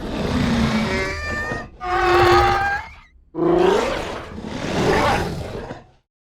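Carnotaurus dinosaur sound effect: four roaring, growling calls in a row, each about a second long, some with a rising or falling pitch. The last cuts off suddenly.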